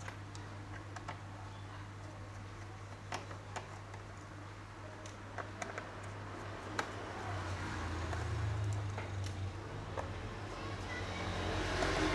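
Scattered small clicks and taps of a screwdriver working the screws out of a laptop's plastic bottom case, over a steady low hum.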